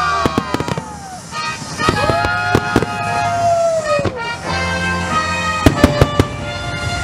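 Aerial fireworks shells bursting in quick volleys of sharp bangs, the loudest cluster a little before the end, over music with long held and gliding notes.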